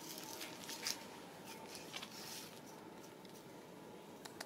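Low background noise with a few faint clicks and rustles, the loudest about a second in.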